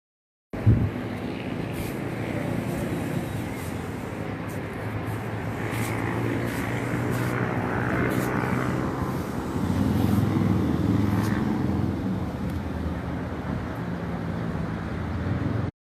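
Airplane flying over, a steady low drone that swells and is loudest about ten seconds in, then eases off.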